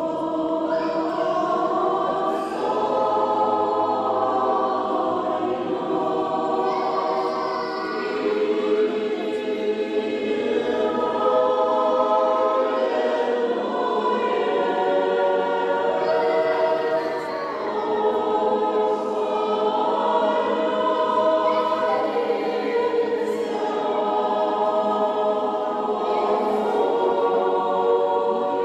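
Church choir singing Orthodox liturgical chant unaccompanied, several voices holding long chords in phrases with brief breaks between them.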